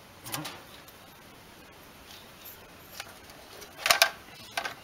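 Multimeter probes and test-lamp clips clicking and rattling against the ignition coil terminals and wiring, loudest about four seconds in and again near the end. A brief low call-like sound comes just after the start.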